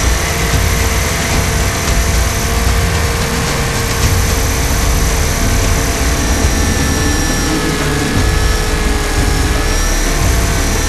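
Radio-controlled 500-size UH-60 Black Hawk scale helicopter in flight, heard from its onboard camera: a steady high whine from the drivetrain and rotors over a dense low rumble, with the pitch shifting slightly partway through.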